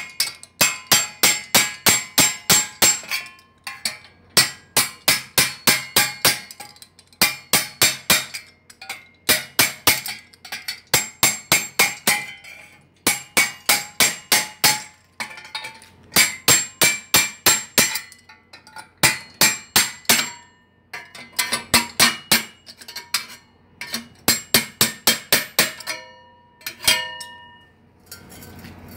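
Rapid hammer blows on a steel rod set against the baffle core inside a motorcycle exhaust muffler, driving the core through the shell; about four strikes a second in runs of several with short pauses. In the later runs the metal rings after each blow.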